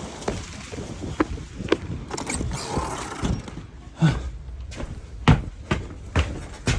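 Large wood fire burning, with irregular sharp cracks and pops over a low rumble.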